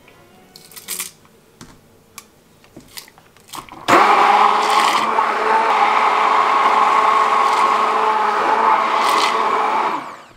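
A few light clicks and taps as dried red chillies are dropped into the blending beaker. About four seconds in, a hand-held stick blender starts and runs steadily for about six seconds, puréeing a thick chickpea chutney, then stops abruptly near the end.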